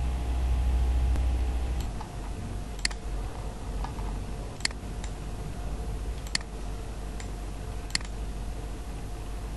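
Computer mouse clicking: four sharp clicks, about one every second and a half to two seconds, over a steady faint hum, with a low rumble for the first two seconds.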